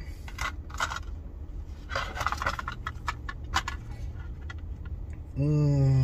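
Cutlery scraping and clicking against a plate of food in several short bursts, busiest about two seconds in. A man's voice comes in near the end.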